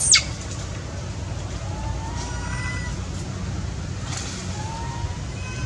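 Young macaque calling: a sharp, brief high squeal that slides steeply down in pitch right at the start, then two soft coo calls, each a short tone rising and levelling off, about two and four and a half seconds in. A steady low rumble sits under the calls.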